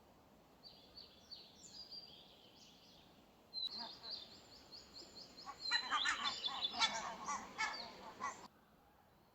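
Wild birds calling: scattered high chirps, then a louder run of rapid repeated chirps and harsh, rasping calls that lasts about five seconds and stops abruptly.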